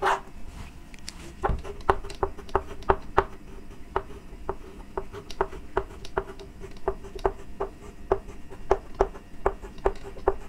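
Chalk writing on a chalkboard: a string of sharp taps and short scrapes, about two or three a second, as block capital letters are chalked onto the board.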